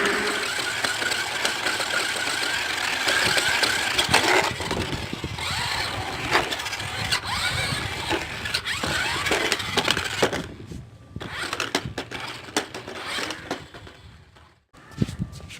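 Battery-powered RC stunt car running: its electric drive motors whirring and its wheels and body knocking and clattering on the ground, with many sharp knocks. About ten seconds in the running dies down, leaving scattered clicks.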